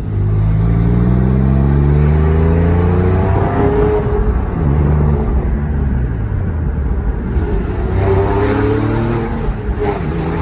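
2008 Porsche 911 Carrera S's 3.8-litre flat-six heard from inside the cabin, accelerating through the gears. The revs climb for about four seconds and fall away at a gear change, then climb again briefly near the end before another drop.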